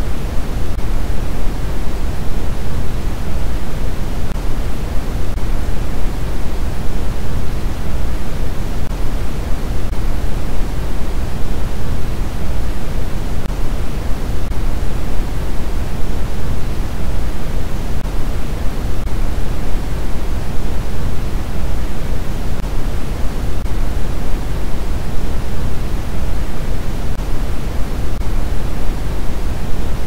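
Continuous generated noise of the 'white noise' kind: a steady, unchanging hiss that carries more weight in the low end than at the top, closer to pink noise.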